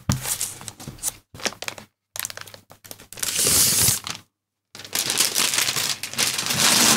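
Plastic wrapping crinkling and rustling as it is handled and pulled off a new laptop, in several stretches with short pauses between them.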